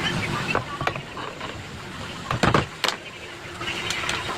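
Metal clinks and knocks from hands and tools working on an angle grinder's gearbox parts, with one heavier knock about halfway through.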